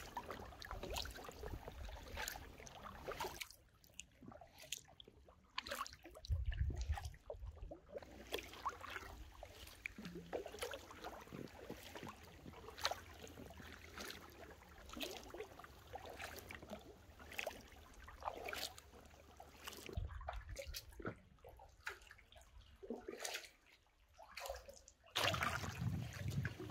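Inflatable kayak being paddled: water splashing and trickling off the paddle blades in irregular strokes.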